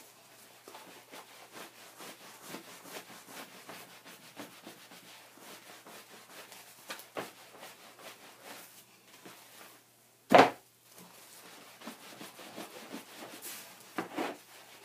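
Hands rubbing and rolling wet, soapy wool felt over a rubbery mesh mat, a steady run of faint rubbing strokes as the felt is agitated to tighten and full it. One loud, short knock about ten seconds in.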